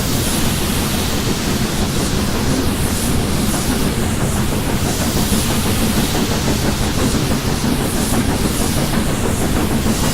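Steam-hauled train behind a BR Britannia-class locomotive running past at speed: a loud, steady rush of wheels on rails with some hiss, swelling and fading slightly every couple of seconds as the carriages go by.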